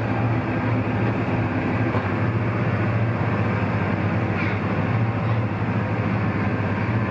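Sightseeing boat's engine running steadily under way, heard from inside the cabin as a constant low hum over the rush of water along the hull.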